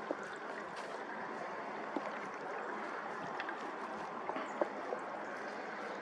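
Steady rush of flowing creek water, with a few faint ticks.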